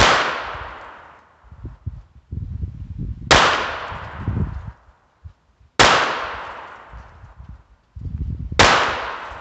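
Browning Buck Mark .22 LR pistol firing Armscor ammunition: four single shots about every three seconds, each followed by an echo that dies away over a couple of seconds, with wind rumbling on the microphone between shots.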